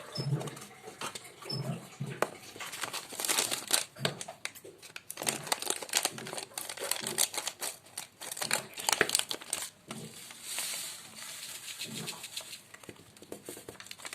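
Plastic spice packets being handled: irregular crinkling and rustling with some tearing, and soft knocks in between.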